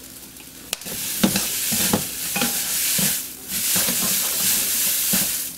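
Noodles sizzling in hot oil in a wok as they are tossed and stirred with chopsticks and a wooden spatula, with sharp knocks of the utensils against the pan. The sizzle starts about a second in and dips briefly around the middle.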